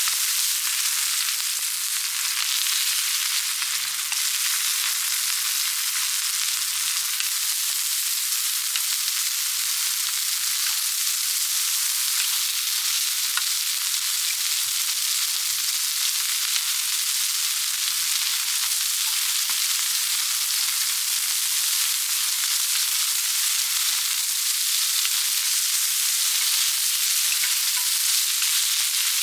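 Food frying in hot fat on a pan, a steady sizzle with fine crackles and spits throughout.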